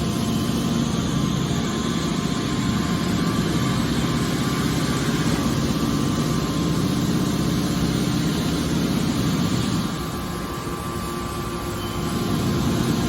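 An engine running steadily, easing off slightly about ten seconds in.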